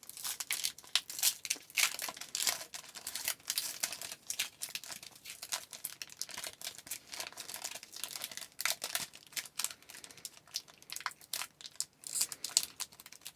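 Wrapper of a trading-card pack crinkling and tearing as it is opened by hand, a dense run of irregular sharp crackles.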